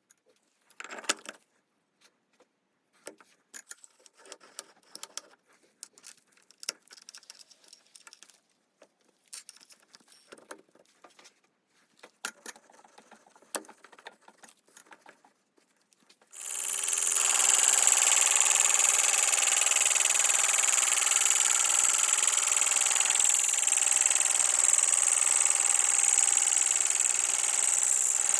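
Scattered clicks and knocks of metal parts being handled, then about two-thirds of the way in a TV-16 lathe is switched on and runs steadily with a high whine.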